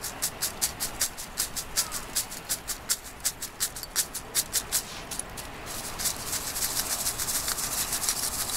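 Stainless mesh colander shaken in quick regular strokes, about four or five a second, sifting sand and ash out of a load of charcoal pieces. About two-thirds of the way through, the separate strokes run together into a denser, steady rustle.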